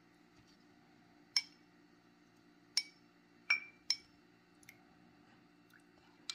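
Small metal spoon clinking against glass bowls, about six separate sharp, ringing taps spaced a second or so apart as ingredients are scooped and transferred.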